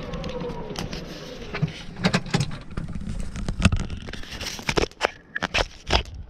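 Golf cart driving and slowing, with a whine that falls in pitch over the first second. After that comes a string of sharp knocks and rattles as the cart and the clubs in its bag jolt over rough ground.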